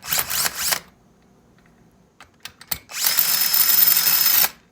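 Power drill backing out rusty bolts from an air compressor's pump head. It runs in two short bursts, then a longer steady run of about a second and a half near the end, with a few small clicks in between.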